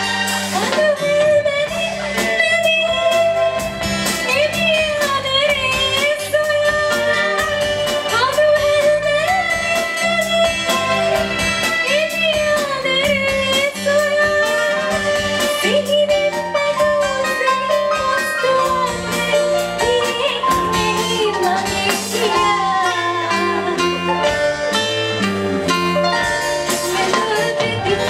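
A woman singing into a microphone, backed by a live band of guitar, keyboard and drum kit. Her held notes bend and waver.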